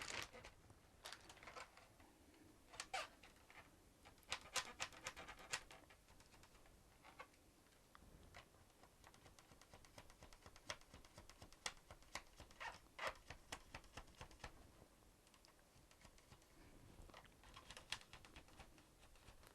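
Faint, irregular clicks and scrapes of hands and a screwdriver working on a laptop's plastic underside, taking out the case screws.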